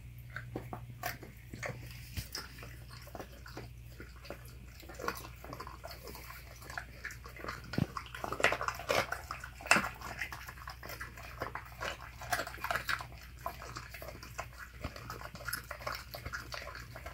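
Alaskan Malamute chewing a whole raw Cornish game hen, bones and all: wet gnawing with irregular crunches and cracks of bone, thickest about halfway through.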